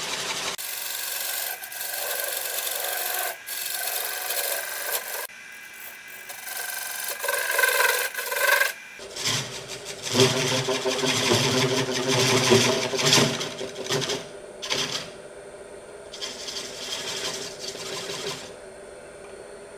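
Turning tool scraping and cutting the wood of a cottonwood platter spinning on a lathe, in stretches, with a rougher, louder passage about halfway through. Near the end it settles to a quieter steady running sound.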